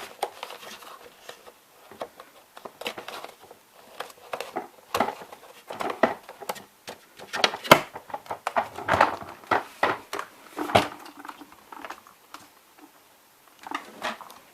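Irregular clicks, knocks and short rustles of things being handled at close range, busiest in the middle, with no steady motor running.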